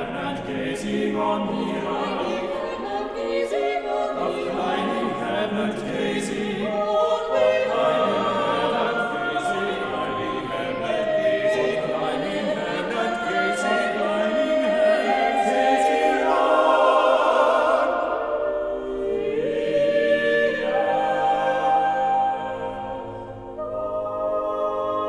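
Mixed a cappella vocal ensemble of eight singers, women and men, singing a slow choral piece in sustained close harmony. About two-thirds through, the sound thins to the higher voices before the lower voices come back in.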